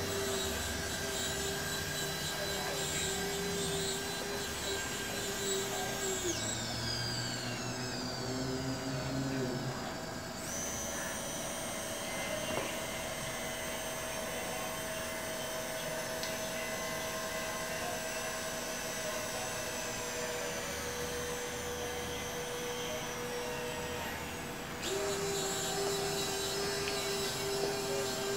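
Electric gear motors of a motorised skeleton-arm wing rig whirring as the wings move, with a steady whine that changes pitch a few times as the motors change their work.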